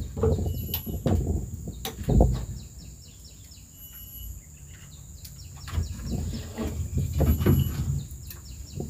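Birds chirping in a few short, high notes, with irregular knocks and rustling handling noises near the start and again in the second half, over a steady thin high tone.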